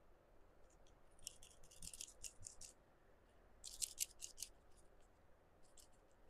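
Fingertips patting liquid blush onto the cheek: faint, quick soft ticks in two short flurries, about a second in and about four seconds in, with a few more near the end.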